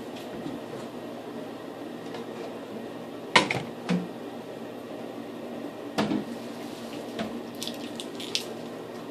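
A few sharp knocks and clicks, the loudest about three and a half seconds in and another at six seconds, over a steady background hiss.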